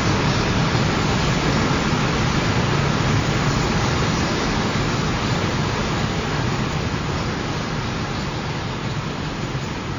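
A passing freight train rolling by: a steady, noisy rumble of wheels on rail that slowly fades toward the end.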